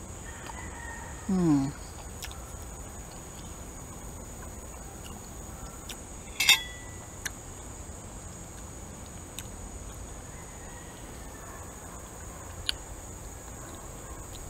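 A person eating a piece of hard-boiled duck egg with her mouth closed: a short falling hum about a second in, then one sharp click about six and a half seconds in and a few faint clicks. A steady high-pitched whine runs underneath.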